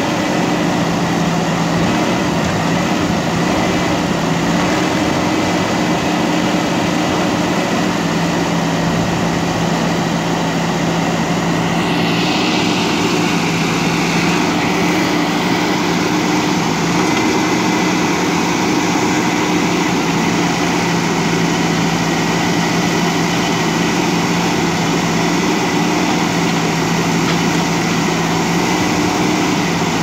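JCB backhoe loader's diesel engine running at a steady speed while it works, with a brief hiss about twelve seconds in.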